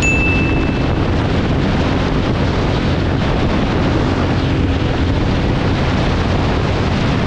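Benelli Imperiale 400's single-cylinder engine running steadily near full throttle on a top-speed run, mixed with heavy wind noise on the microphone. A short high beep sounds right at the start.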